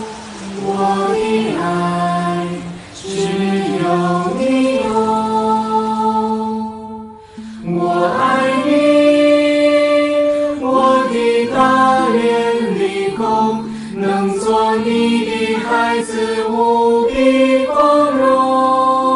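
Mixed choir of young men and women singing a slow Chinese song in harmony. They hold long notes, break off briefly about seven seconds in, then come back fuller and louder.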